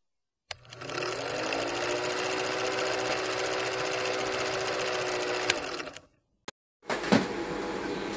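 Film projector sound effect: a steady mechanical whir and clatter that spins up over the first second and then runs evenly, stopping abruptly about six seconds in. After a moment of silence, quieter room sound comes in with a thump.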